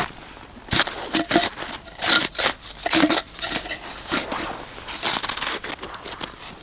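Irregular crunching and crinkling handling noises: a rapid, uneven run of short crackles and rustles.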